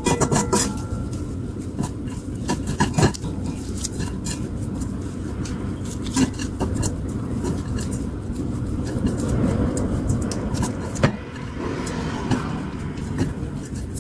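Wooden chopsticks tossing glazed shredded dried squid in a pan: rustling and scraping of the strands with frequent sharp clicks of the chopsticks against the pan, over a steady low rumble.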